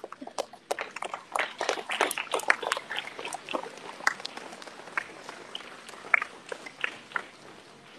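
Scattered clapping from an assembly of pupils at the end of a speech: dense for the first few seconds, then thinning out to a few last claps near the end.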